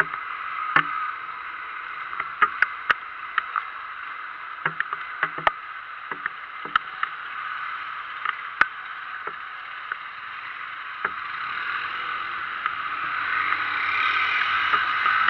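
Rain: a steady hiss with irregular sharp taps of drops striking close to the microphone, getting heavier near the end.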